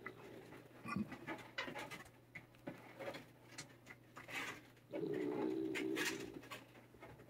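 Feral cat growling low in an angry rumble while a thick leather glove strokes its back, with short hisses and the rustle of the glove on its fur; the growl is strongest about five seconds in.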